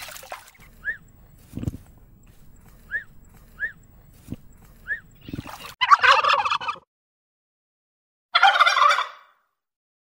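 A male turkey (tom), strutting with its tail fanned, gobbles twice: two loud, rapid rattling calls, each about a second long, some two and a half seconds apart. Before them come a few faint short chirps and soft thumps.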